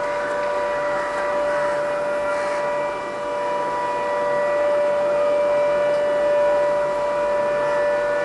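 Demolition warning siren holding a steady, unwavering tone over constant outdoor noise: the warning that the explosive blast to bring down the building is imminent.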